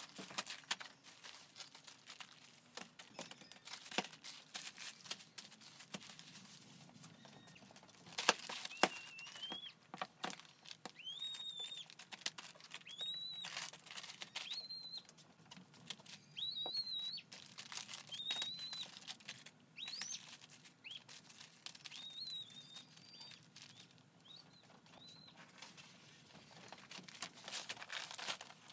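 Plastic grocery bags and packages crinkling and rustling as shopping is unpacked and set down, with small knocks. Through the middle a bird chirps in short rising calls, roughly one a second.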